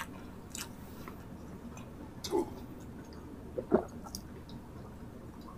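People drinking from glasses: two short gulps, about two and a half and about three and a half seconds in, among light clicks and mouth sounds.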